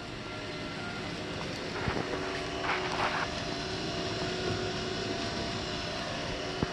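Steady mechanical hum with several faint steady tones. A brief cluster of clicks and rustling comes about two to three seconds in.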